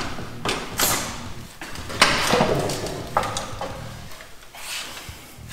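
Irregular scraping and clunking, the sharpest about two seconds in, as a Tremec 3650 transmission is rocked by hand to work its bellhousing off the engine block's dowel pins.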